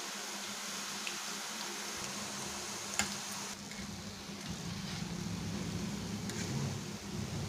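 Hot oil sizzling with a steady hiss around dough snacks deep-frying in a kadai, with one sharp click about three seconds in. In the second half the hiss is softer and a low rumbling handling noise comes in as a slotted spoon turns the pieces in the oil.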